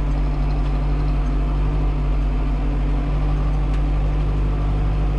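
Tractor diesel engine running steadily under load, pulling a disc harrow through dry ploughed soil to break up clods.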